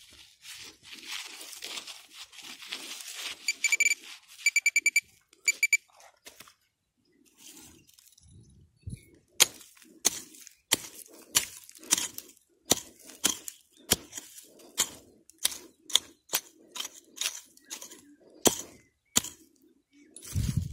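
A hand digging tool scrapes through dry soil, and about four seconds in a metal detector beeps in quick short pulses. From about nine seconds the tool chops into the ground in sharp strikes, about two a second, with a dull thump near the end.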